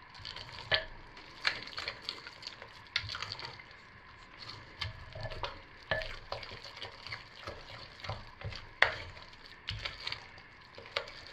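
Silicone spatula stirring and folding thick, gelled hot-process soap in a slow-cooker crock. Soft squelching comes with irregular sharp clicks and scrapes, the loudest a little under nine seconds in.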